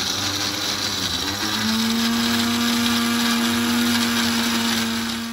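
Countertop blender with a glass jar running at speed, grinding dry biscuits into fine crumbs. The motor runs steadily; about a second and a half in a steady hum comes through, and the motor winds down right at the end.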